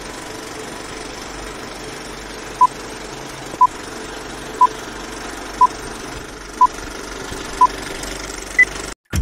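Vintage film-leader countdown sound effect: a steady film-projector whir and clatter with short beeps once a second, six at one pitch and a final higher beep. The sound cuts off about nine seconds in.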